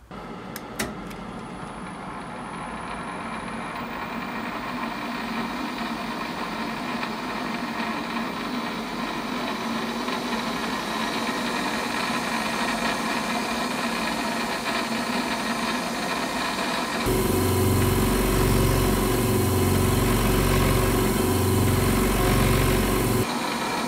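Warco WM 250V metal lathe running at about 1000 rpm, a steady motor and drive hum that grows slowly louder over the first several seconds. About seventeen seconds in it switches abruptly to the Hyundai HY27550 twin-cylinder air compressor pumping, louder, with a low pulsing throb, which breaks off again about six seconds later.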